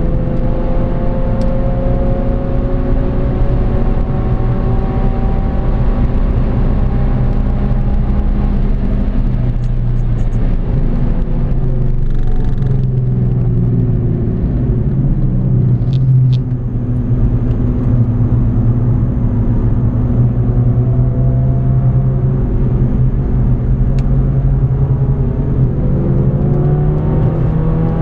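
Mercedes A45 AMG's turbocharged 2.0-litre four-cylinder heard from inside the cabin, pulling hard along a straight with its note climbing slowly in pitch. There is a short break in the note about twelve seconds in, then it climbs again towards the end.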